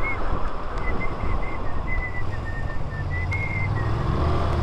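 Wind rush and road noise from a moving motorcycle, with its engine running underneath. Over it a person whistles a tune in short notes that step up and down in pitch.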